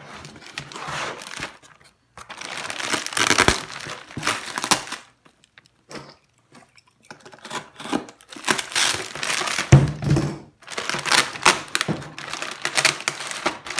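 Plastic packaging and cardboard crinkling and rustling in bursts as an RC truck is worked out of its box, with a thump about two thirds of the way through.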